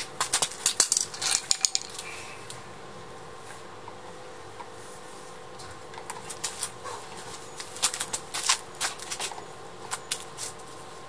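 Clicking and knocking from a mountain bike's coil-spring front suspension fork being pushed down by the handlebar and let back up. The fork is stiff and barely moves. The knocks come in two quick clusters, in the first two seconds and again from about six to ten seconds in.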